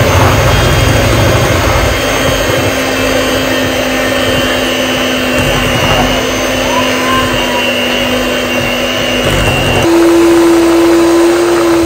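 Electric hand mixer running, its beaters working batter in a glass bowl: a steady motor hum whose pitch steps up about ten seconds in.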